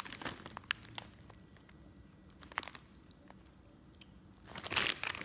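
Clear plastic snack bag of pork rinds crinkling and crackling as it is handled and turned over, in scattered crackles with a denser, louder burst near the end.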